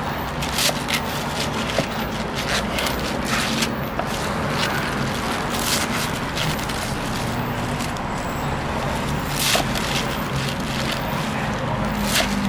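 Chef's knife chopping napa cabbage on a wooden cutting board: irregular crisp strikes of the blade through the leaves onto the wood, spaced unevenly, over a steady background hum.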